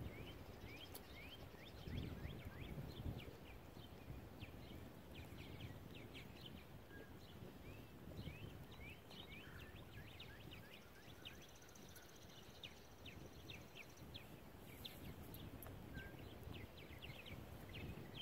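Faint outdoor ambience of small birds chirping, many short high chirps throughout, over a low rumble of wind on the microphone.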